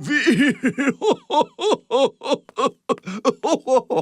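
A cartoon character laughing in a rapid run of short, pitched 'ha-ha' syllables, about four to five a second.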